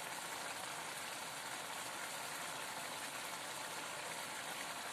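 Thickened chickpea masala gravy bubbling steadily in a pan at a full simmer.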